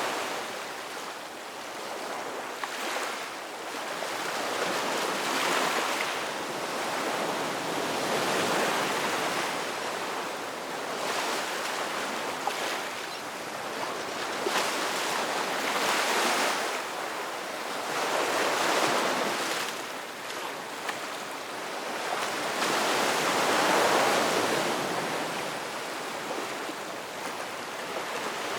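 Ocean surf breaking on a beach: a steady rush of waves that swells and ebbs every few seconds, with the loudest breaks about a quarter of the way in and again near the end.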